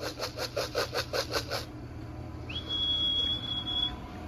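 Feed rattled in a can to call racing pigeons home, about five shakes a second, stopping after a second and a half. Then one long, high whistle by a person, rising briefly at the start, held about a second and a half.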